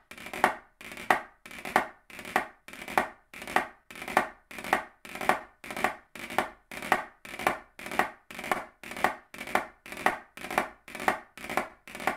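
Wooden drumsticks playing short five-stroke rolls hand to hand on a drum practice pad, right then left. Each roll is two soft buzzes ending in a clear, sharp finishing tap, in a steady rhythm of about three rolls every two seconds.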